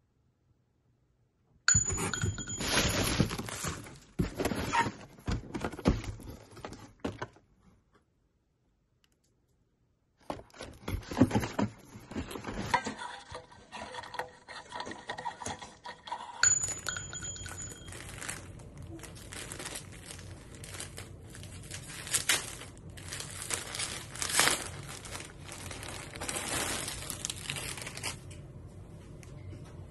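Rustling, crinkling and small clinking sounds of objects being handled, in uneven bursts with two silent gaps, one at the start and one about eight to ten seconds in. From about sixteen seconds on, a low steady hum runs under the rustling.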